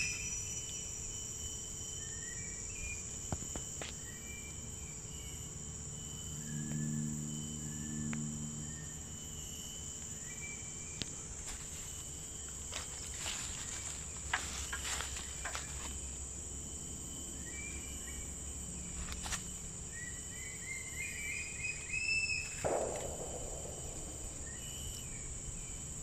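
Steady high-pitched insect drone with scattered bird chirps. About midway, a quick run of sharp knocks as a wooden rod is slammed down into an upright bamboo tube to strike a bamboo match. A short falling sound comes near the end.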